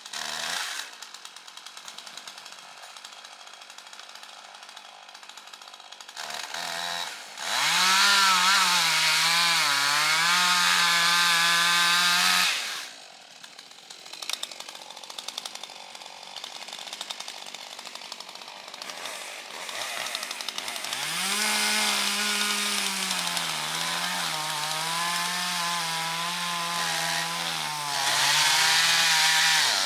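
Two-stroke chainsaw idling unevenly, then throttled up to a high, steady whine for about five seconds and dropped back to idle. It is revved up again for most of the second half, climbing highest near the end.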